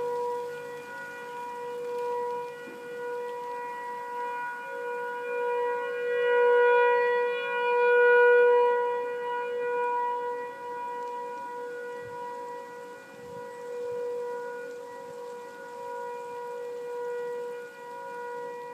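Nuclear power plant outdoor warning siren sounding a steady, unwavering tone during a test. Its loudness swells and fades over several seconds, loudest about eight seconds in.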